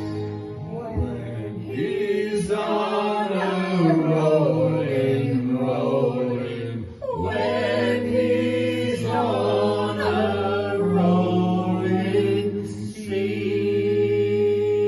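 Sea shanty group singing long, held chords in close harmony over a steady low tone, the voices sliding between notes. The sound dips briefly about seven seconds in before the next held chord.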